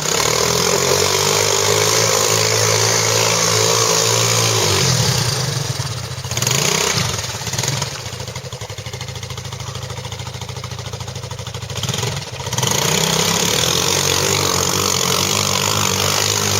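ATV engine running steadily, dropping off about five seconds in, then running lower with a quick, even pulse before picking up again near the two-thirds mark.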